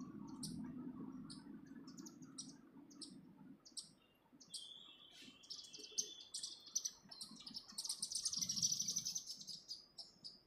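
Small songbirds chirping: a short high chirp repeated every half second or so, then a dense, rapid twittering that peaks about eight seconds in. A low rumble sits underneath for the first few seconds.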